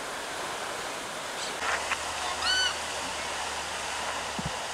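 Steady rush of a fountain spraying into a pond, with a waterbird giving a short call once, about two and a half seconds in.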